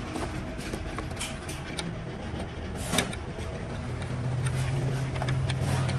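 A few light metallic clicks and taps, the loudest about halfway through, as nuts are fitted by hand onto the studs of an air-suspension front shock's top mount. Under them runs a steady low hum that grows louder in the second half.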